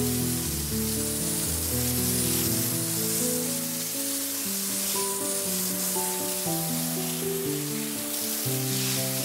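Background music of slow, held synth notes changing every second or so, over a steady hiss of water spray from field irrigation sprinklers.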